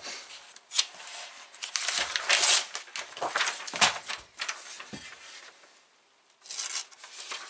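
Paper rustling and crinkling in several short bursts as a printed sheet is handled and sliced with the edge of a carpenter-grind axe. The edge has been dulled by 400 cuts through hemp rope and goes through the paper less cleanly.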